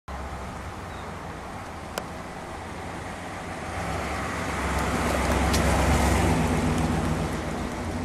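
1957 Ford Thunderbird's 312 cubic-inch V8 running as the car drives up and passes by, its low engine note growing louder to a peak about six seconds in, then fading away. A short click about two seconds in.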